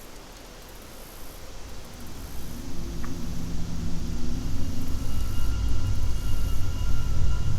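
Low engine rumble growing steadily louder from about a second and a half in, with a faint high steady whine over it, typical of a jet aircraft approaching overhead.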